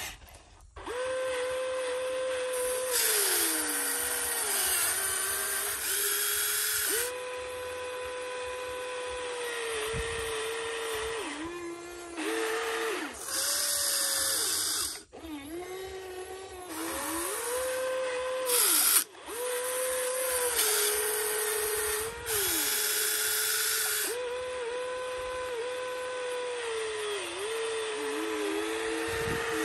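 Electric motors of a Huina RC excavator whining in short runs as the boom, arm and bucket work the sand. The pitch steps and dips with load, and stops and restarts over and over, with spells of high hiss and one sharp click a little past the middle.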